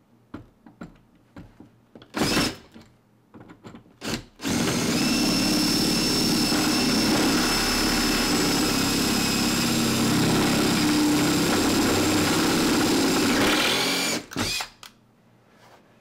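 Power drill boring into the cylinder of a Defiant deadbolt: after a few light clicks and two short trigger bursts, the drill runs steadily for about ten seconds with a constant motor whine, stops, then gives two quick final bursts.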